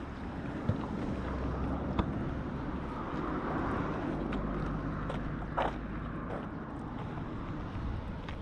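Low rumbling noise of wind on the microphone, with a few sharp clicks.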